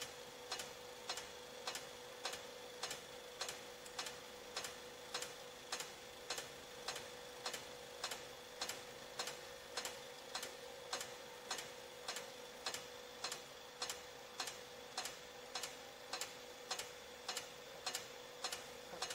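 On-car brake disc lathe turning a vehicle's hub and rotor: a steady hum with a sharp, regular tick about twice a second.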